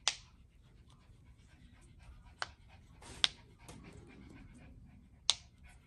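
Silicone Pop-It phone case being pressed by fingers, its bubbles popping: four sharp pops spread over a few seconds, with softer clicks and handling sounds between them.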